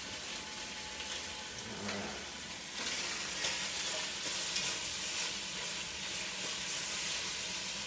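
Ham sizzling and frying in a hot pan as its fat renders out. The sizzle grows louder and brighter about three seconds in.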